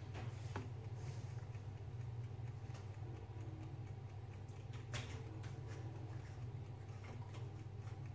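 Steady low hum with light ticking and clicking throughout, and a sharper knock about five seconds in.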